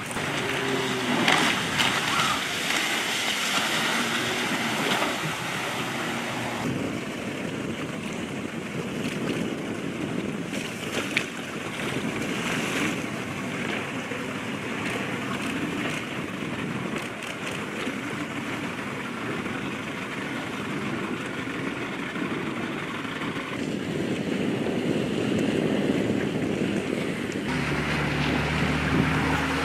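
Wind and choppy sea water rushing and splashing in a steady hiss. About 27 seconds in, a steady low engine hum comes in.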